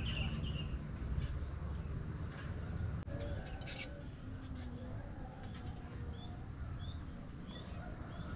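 Outdoor ambience of insects: a steady high-pitched drone over a low rumble, with a few short rising bird chirps in the second half and a single click about three seconds in.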